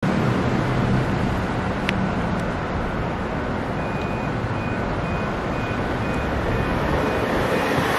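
Steady road traffic noise. A single sharp click comes near two seconds in, and a high beeping, about two beeps a second, starts about four seconds in.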